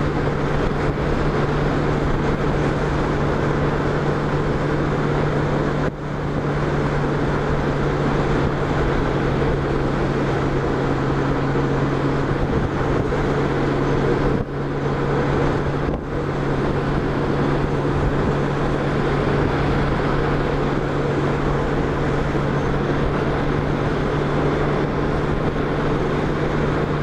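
Touring motorcycle cruising at steady highway speed: an even engine drone under a broad rush of wind noise, with brief dips in level about six seconds in and twice around the middle.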